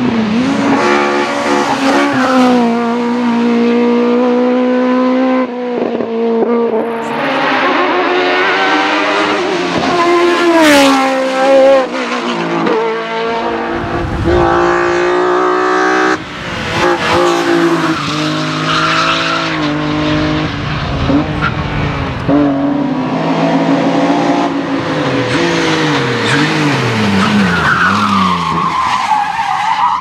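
Race cars, among them BMW 3 Series touring cars, accelerating hard up a hillclimb course one after another. Each engine's pitch climbs and then drops back at every gear change, with tyre squeal in the corners.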